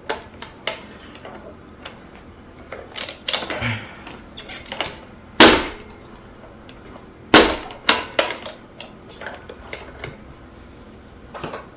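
Plastic parts of a Hoover upright vacuum cleaner being handled: scattered clicks and knocks, with two sharp, louder knocks about five and a half and seven and a half seconds in.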